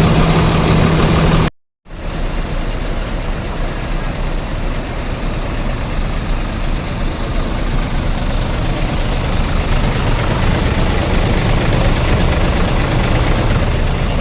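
Bus engine running steadily. The sound drops out briefly about a second and a half in, then resumes with more hiss over the low engine rumble.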